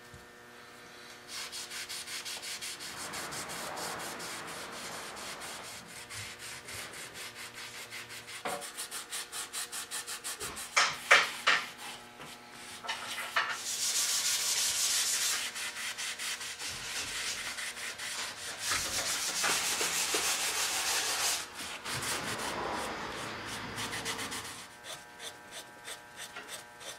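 Cloth rag wet with denatured alcohol rubbed back and forth over the old shellac finish of a wooden chair, dissolving the clouded shellac layer. The uneven strokes grow louder about halfway through, over a faint steady hum.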